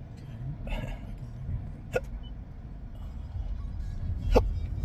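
A man hiccuping twice, each a short sharp hic, about two seconds in and again near the end, part of a persistent bout of hiccups he can't stop. Under them runs the low rumble of the moving car, heard from inside the cabin, growing louder toward the end.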